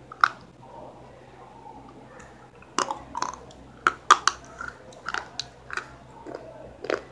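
A person biting into and chewing crisp food close to the microphone: one bite just after the start, then a run of sharp crunches from about three seconds in.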